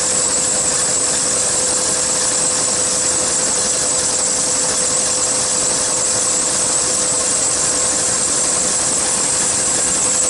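1999 Chevy Suburban's engine idling steadily with the A/C running during a refrigerant recharge: an even mechanical noise with a constant hum.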